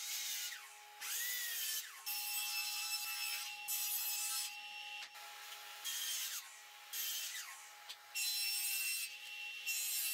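Sliding miter saw cutting pine pallet boards: a string of short cuts, each about a second long, with the motor's whine rising and falling between them.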